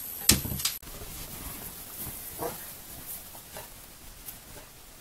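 Dogs playing on a tile floor, with a sharp knock about a third of a second in. The sound then cuts suddenly to a quieter outdoor bed, where a dog gives one short, faint bark about two and a half seconds in.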